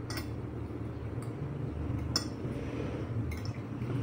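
Spoon and fork clinking and scraping against a ceramic plate of rice while eating: four sharp clinks about a second apart, the loudest about two seconds in, over a steady low hum.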